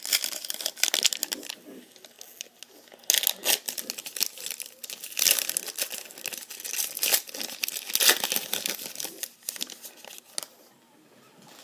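Foil trading-card pack wrapper crinkling and being torn open, in irregular bursts of crackling that stop about ten and a half seconds in.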